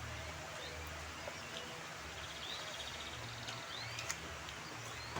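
Birds chirping now and then over a steady outdoor background with a low hum, including a brief rapid trill in the middle and a few faint clicks.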